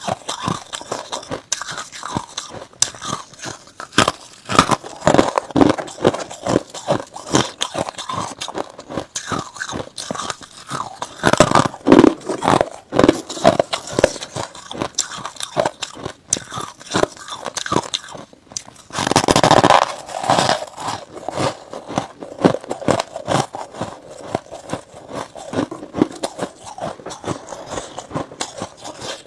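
A person biting and chewing clumps of freezer frost close to a clip-on microphone: dense, irregular squeaky crunching, loudest about twelve seconds in, with one longer unbroken crunch around twenty seconds.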